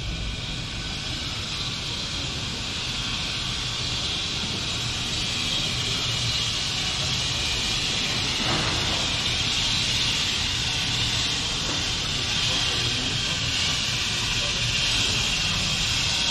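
City pedestrian-street ambience: a steady hiss over a low hum of distant traffic, with faint voices from people at café tables.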